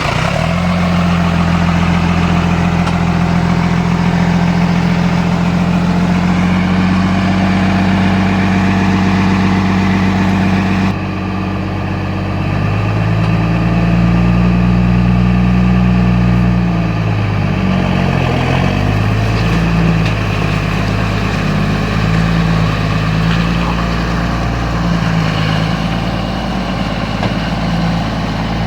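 Kobelco excavator's diesel engine running at a steady note. The sound changes abruptly about eleven seconds in, and later the engine pitch wavers up and down for a few seconds before settling.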